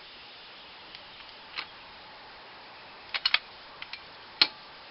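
A few light, sharp clicks and taps over faint background hiss: a single one early, a quick group of three a little past halfway and a sharper one near the end, from handling the air impact wrench as it is set up on a wheel's lug nuts.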